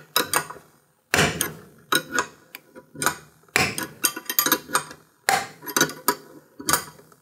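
Crank installer tool being wound in to pull a Wiseco crankshaft's bearing into a Yamaha Raptor 660 crankcase. Groups of sharp clicks, knocks and pops come about once a second, with a denser run about halfway through. The creaking and popping of the snug press fit is normal.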